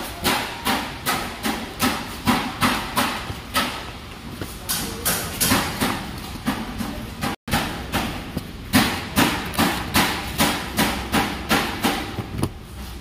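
Rapid, regular knocking like hammering, about three blows a second, keeping a steady beat throughout.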